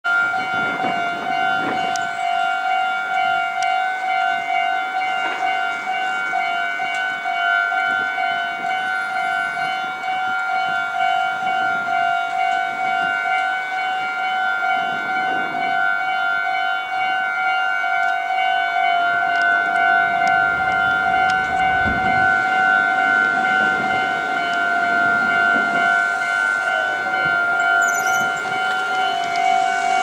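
Japanese railway level-crossing alarm ringing its rapid, repeating electronic ding while the warning lights flash. A low rumble swells about two-thirds of the way through.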